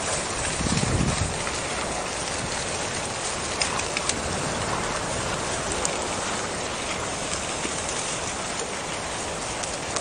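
A herd of horses galloping through tall grass: a steady, dense mass of many hoofbeats and brushing grass, a little heavier about a second in.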